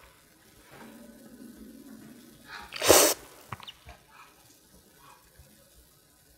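Close-miked eating sounds from a person eating porridge: soft mouth noises, then a short loud breathy burst about three seconds in, like a sharp slurp, blow or sneeze, followed by a few light clicks.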